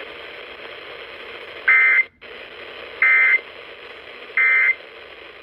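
Three short bursts of Emergency Alert System SAME digital data, a buzzy two-tone warble, each about a third of a second long and about a second apart. They are the end-of-message code that closes the severe thunderstorm warning broadcast. Steady radio hiss runs between the bursts.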